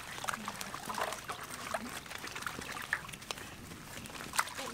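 Water splashing and trickling in a large metal basin as hands wash food in it, with scattered small irregular clicks and splashes.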